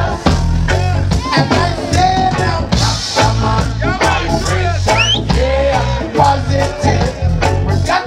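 Live reggae band playing, with a man singing lead into a microphone over a stepping bass line and steady drum beat.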